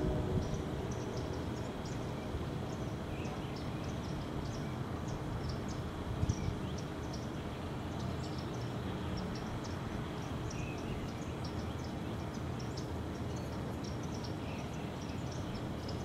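Outdoor waterside ambience: a steady low rumbling hiss with many short, faint high chirps, several a second, and a couple of soft knocks about six seconds in.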